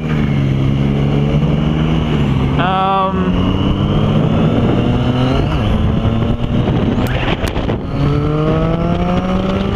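Triumph Street Triple's three-cylinder engine running while riding, under a steady rush of wind noise. The engine note holds and sags slightly, then climbs steadily near the end as the bike accelerates.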